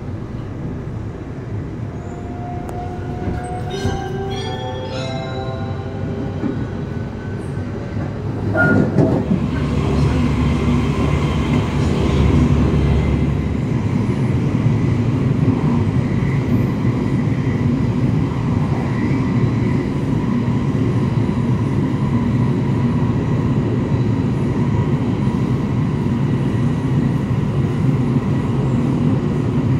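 Onboard sound of a JR 281 series Haruka limited express train running and gathering speed. Early on, a set of electric motor whine tones climbs in steps. About nine seconds in, a sudden, louder rush with deep rumble sets in, then steady rail running noise.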